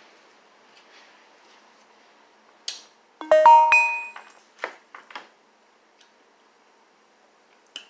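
A short electronic chime of several quick notes, about a second long, about three seconds in. A few light knocks come before and after it as a foam cup and plastic spoon are handled on the table.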